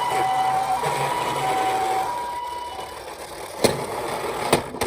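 Toy ambulance's electronic two-tone siren sounding, alternating between a higher and a lower pitch about every half second. It cuts off a little under three seconds in. Three sharp clicks follow.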